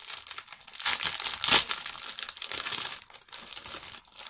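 Clear plastic bag around a trading-card magazine crinkling as it is handled, with a louder crackle about one and a half seconds in.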